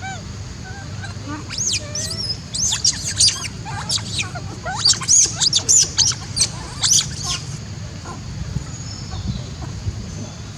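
A monkey giving a rapid run of high-pitched squeals and chirps, densest in the middle and dying away after about seven seconds, over a steady low hum.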